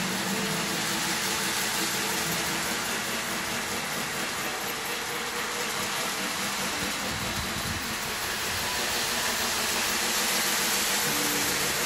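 Model electric train running around its track, giving a steady running noise with no sharp events.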